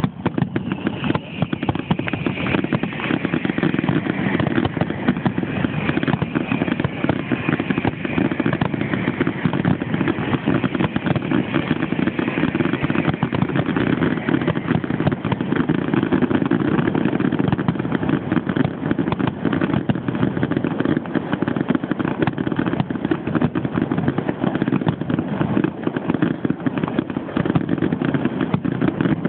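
Fireworks finale: a dense barrage of rapid bursts and crackling whose bangs run together into a steady rumble. A faint whistle falls slowly in pitch over the first several seconds.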